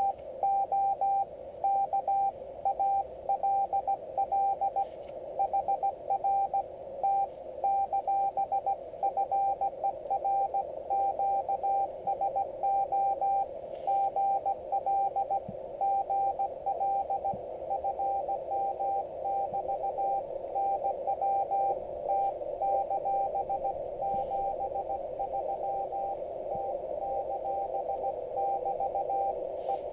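Slow Morse code (CW) from a Yaesu FT-817ND HF transceiver's speaker: a single tone keyed on and off in dots and dashes, over a steady hiss of band noise squeezed into the narrow CW filter.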